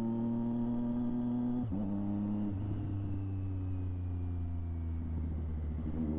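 Triumph Street Triple 765 RS inline-triple engine running through a Delkevic aftermarket exhaust under riding. A brief break in the note about two seconds in, after which it runs at lower revs that slowly fall, then rise again near the end.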